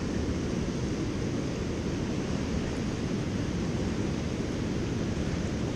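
Steady rush of river water pouring over a low-head dam and running through the rapids below it, with no breaks or distinct events.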